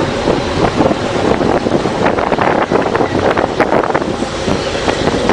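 Heavy wind buffeting on the microphone of a camera riding in a moving vehicle, over the engine and road noise of a military convoy. A cluster of short knocks and rattles comes from about two to four seconds in.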